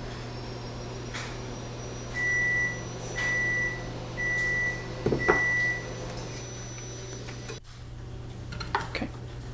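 Microwave oven beeping four times, evenly about a second apart, the signal that its heating cycle has finished, over a steady low hum. A sharp click comes right at the last beep.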